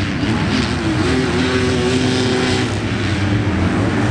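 Motocross bike engines running on the track, revving up and down, with one note held steady for a second or so midway.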